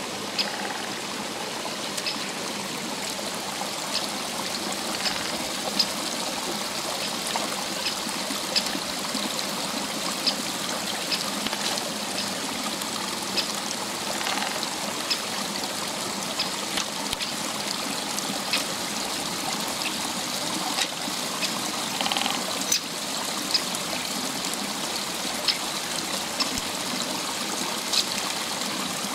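Shallow rocky stream running and trickling steadily over stones, with scattered short sharp ticks.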